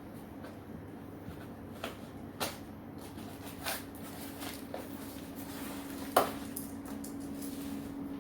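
A few sharp knocks and clicks from the gaming keyboard's box being handled and opened, the loudest about six seconds in, over a steady low hum.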